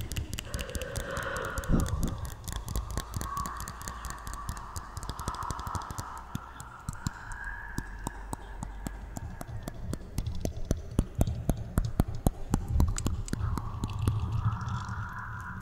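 Quick, irregular close-miked clicking and crackling, dozens of small sharp clicks, with a faint wavering tone behind them.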